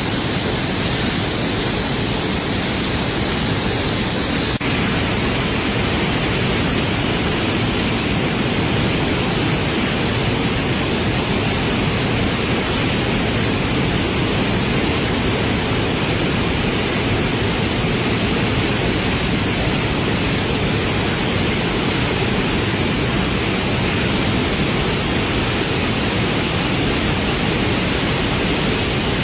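Steady, loud rushing of a flooded river in spate. The sound shifts slightly about four and a half seconds in, where a higher hiss drops away.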